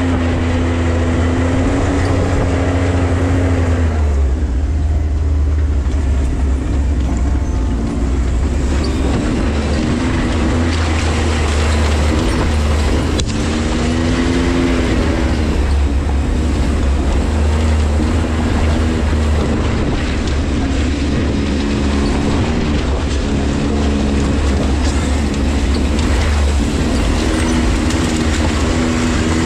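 Side-by-side UTV engine running under way, its note rising and falling several times with the throttle over a steady rushing noise.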